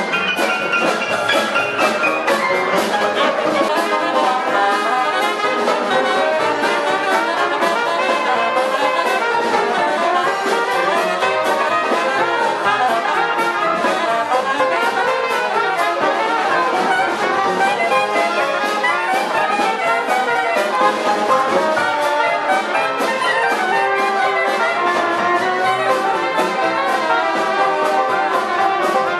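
Live Dixieland jazz band playing with a steady beat: trumpets and clarinet lead over strummed banjo, piano and drums.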